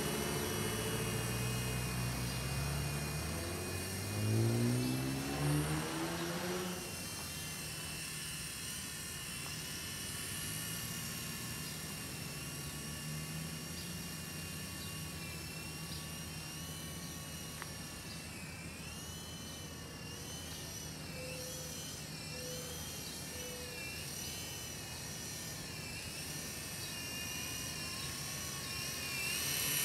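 UDI/RC U12S small electric RC helicopter flying overhead: a steady, high-pitched motor and rotor whine that wavers up and down in pitch in the second half as the throttle changes. During the first several seconds a lower engine sound rises in pitch beneath it.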